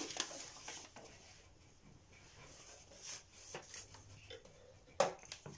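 Felt-tip marker scribbling on paper as small boxes are coloured in: a soft, faint scratchy rubbing, with a sharp knock about five seconds in.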